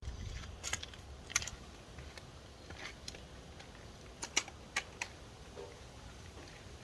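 Sharp clicks and clacks from handling a Silverback TAC-41 P spring-powered bolt-action airsoft rifle: a few scattered ones, then a quick run of four in the middle, as the rifle is readied before a shot.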